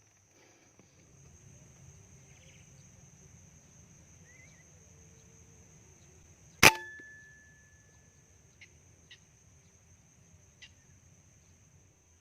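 A single sharp air rifle shot a little past halfway, over a steady high-pitched insect buzz, with a few faint clicks afterwards.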